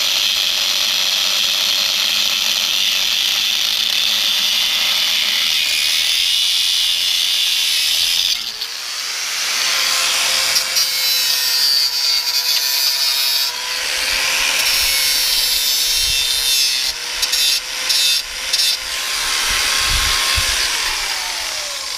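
Handheld power tool working on metal, a loud steady abrasive noise. Partway through, its motor whine comes through and wavers as the load changes, then the tool winds down near the end.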